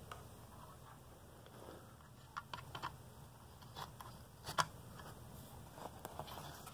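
Faint scattered clicks and taps of cables and plastic connectors being handled and a power plug pushed into a CAS3/4 tester board, the loudest click about four and a half seconds in.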